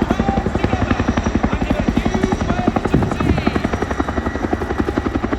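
Loud rapid, steady thudding of a Boeing Chinook HC.6's twin tandem rotors as the helicopter flies.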